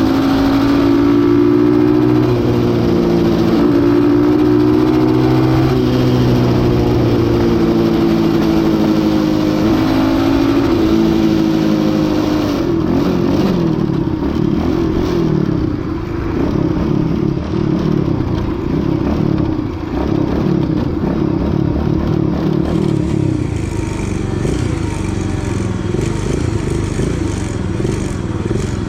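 X15 super pocket bike's small single-cylinder engine running under way, its pitch rising and falling with the throttle. About twelve seconds in, the clear engine note gives way to a rougher, choppier sound.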